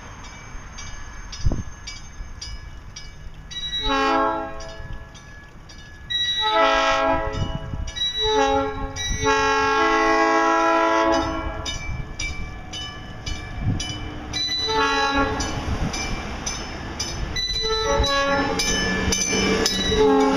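Horn of a South Shore Line Nippon Sharyo electric multiple-unit car sounding a series of long and short blasts as the train approaches. Near the end the rumble of the cars rises as the train draws alongside.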